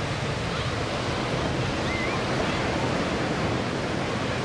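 Surf breaking and wind, an even steady hiss, with a faint low drone underneath from the Pitts biplane's engine.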